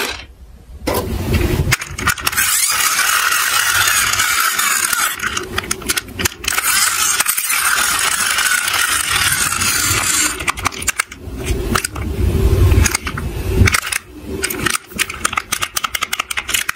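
Small plastic toy cars handled in a cardboard box: clattering, scraping and rapid clicking, with a burst of many sharp clicks in the second half.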